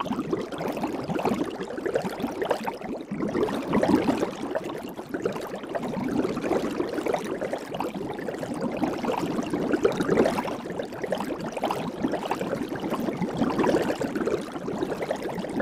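Soapy water bubbling, a dense unbroken stream of small bubbles forming and popping, swelling and easing a little in waves.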